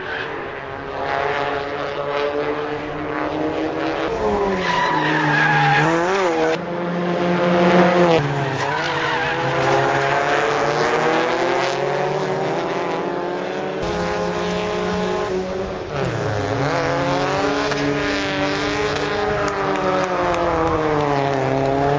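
Race-prepared Scion tCs' four-cylinder engines revving hard, their pitch rising and falling again and again through acceleration and gear changes as the cars race past. The sound changes abruptly a few times.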